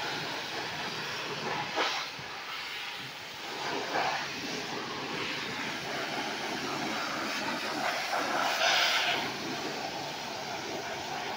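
High-pressure water jet from a pressure washer spraying a motorcycle, a steady hiss that swells briefly a few times as the spray moves over different parts of the bike.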